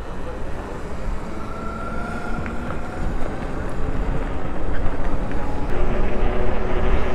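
Wind buffeting the microphone and road noise while riding an electric bike, growing steadily louder as speed builds. Faint steady whines sit over the rumble.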